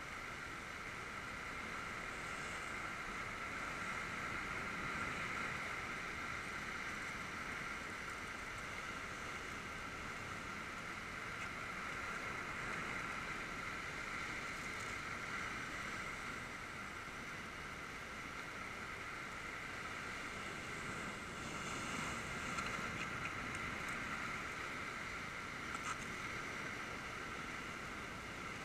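Steady wash of surf breaking on rocks, with wind on the microphone.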